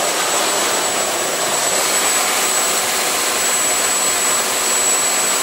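Steady roar of a lobster boat underway in strong wind: engine, rushing water and wind on the microphone blended into one even noise, with a thin high whine over it.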